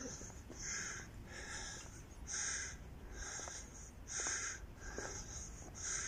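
Castle tower bell ringing faintly, a steady run of strokes a little less than a second apart.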